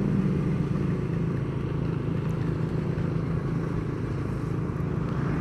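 Steady hum of a motor vehicle's engine running at a constant cruising speed, with road and wind noise.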